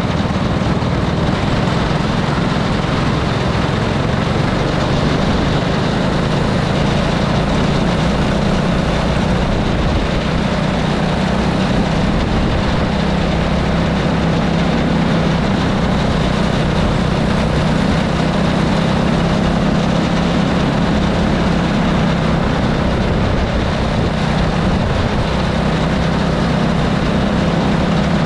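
Go-kart engine heard from on board the moving kart: a steady, unbroken engine drone under a broad rush of wind and road noise as it laps the track.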